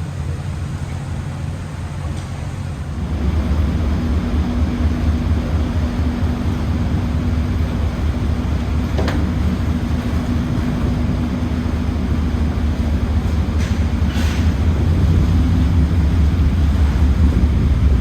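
Steady low rumble of a vehicle in motion, with a droning hum underneath, growing louder about three seconds in.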